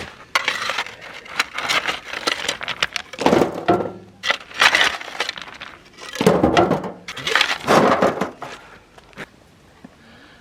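Irregular bursts of crunching and rustling that come in several loud clusters, separated by short quieter gaps and fading out near the end.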